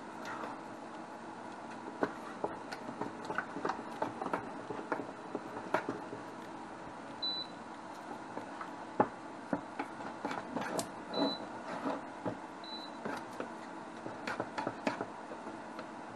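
A spatula stirring and scraping against the inside of a stainless steel saucepan of warabi-starch and water mixture heating on an induction cooktop, with irregular clicks and knocks over a steady hum. Three short high beeps sound in the second half.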